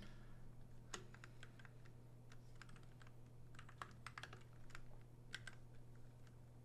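Faint, irregular clicks of a computer keyboard being typed on, a few keys a second, over a low steady hum.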